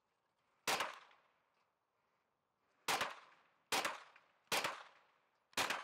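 Five shots from a Smith & Wesson FPC folding pistol-caliber carbine. One shot comes first, then after about two seconds four more follow in quick succession, a little under a second apart, each with a short echoing tail.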